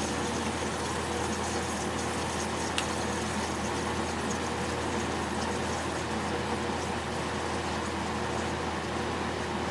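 Magic Chef dehumidifier running with a steady low hum, refrigerant hissing and gurgling through the coils as the compressor cycles off, with a single short click about three seconds in. The compressor is short-cycling, shutting off every couple of minutes.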